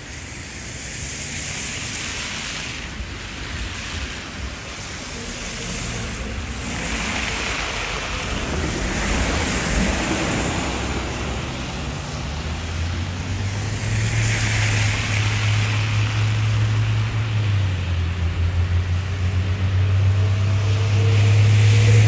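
Street traffic on a snowy road: tyres hissing as cars pass, swelling and fading several times. About halfway through, the low steady hum of a vehicle engine comes in, rising in pitch near the end.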